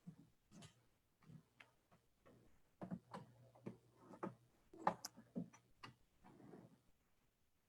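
Near silence in a room, broken by faint, irregular clicks and knocks, a dozen or so, a little louder around the middle.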